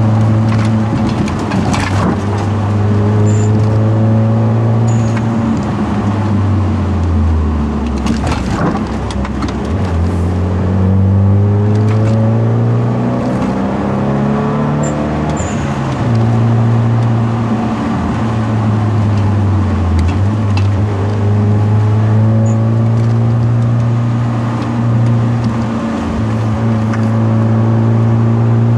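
Hyundai Genesis Coupe 2.0's turbocharged four-cylinder engine driving under load through a manual gearbox. The engine note drops off about seven to nine seconds in and again about twenty seconds in, then climbs back as the car accelerates.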